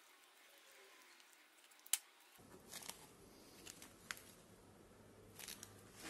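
Faint clicks and rustles of a motorcycle wiring harness and its plastic connectors being handled in gloved hands, with one sharper click about two seconds in. A faint low hum comes in about two and a half seconds in.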